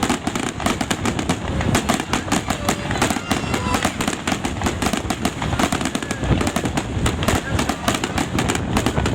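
Fireworks display going off: a dense, continuous run of rapid pops, bangs and crackle, many reports a second with no pause.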